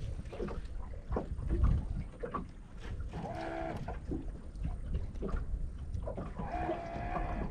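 Wind buffeting the microphone and small waves lapping against a boat, with scattered light clicks and knocks. Twice, about three seconds in and again near the end, a distant animal gives a short wavering call.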